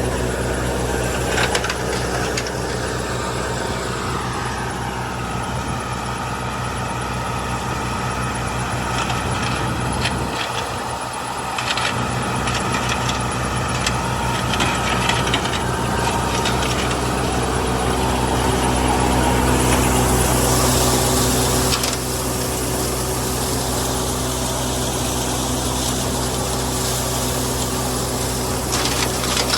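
An old combine harvester's diesel engine and threshing machinery running steadily under load. A louder rushing noise joins about twenty seconds in and cuts off suddenly about two seconds later.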